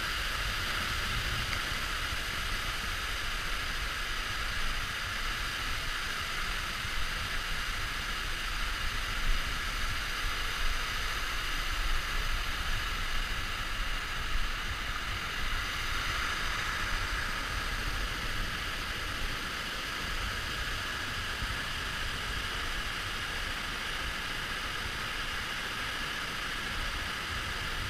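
Steady rushing of Lower South Falls, a waterfall heard from close up on the trail behind its falling curtain of water.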